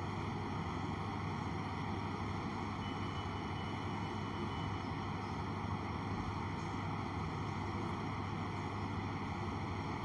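Steady machine hum with an airy, fan-like noise and a low electrical drone, unchanging throughout, with no clear stirring or bubbling sounds.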